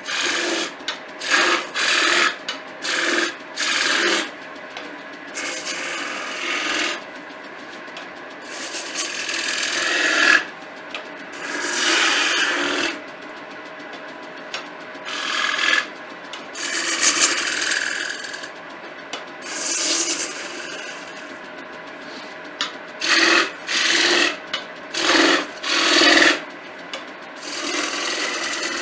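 Hand-held turning tool cutting into spinning softwood on a lathe, shaping beads and grooves on the leg. A run of short cuts comes at the start and again about three quarters of the way through, with longer sustained cuts in between.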